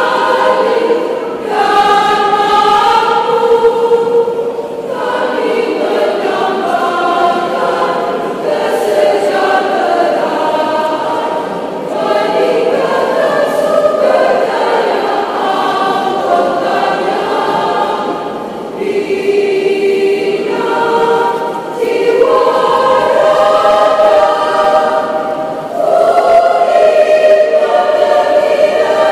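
Women's choir singing together, long held notes in phrases with short breaks between them.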